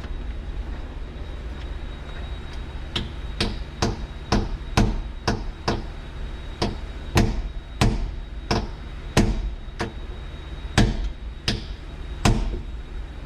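Hammer blows on the worn piano hinge of a Peterbilt 359 cab door, driven to break it loose: about fifteen sharp metal strikes, roughly two a second, in short runs with brief pauses. A steady low hum runs underneath.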